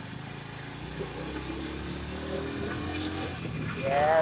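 Low rumble of a motor vehicle's engine running, a little louder through the middle. Right at the end a loud wavering animal call begins.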